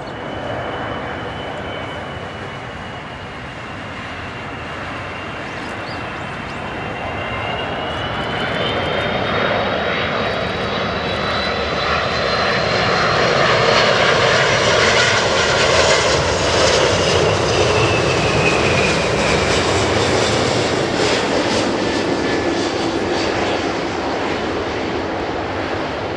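Airbus A330-200F freighter's jet engines on final approach: a continuous rushing noise with a high whine. The noise grows louder and the whine climbs in pitch as the aircraft draws near. It is loudest as the plane passes, after which the whine drops in pitch as it moves away toward the runway.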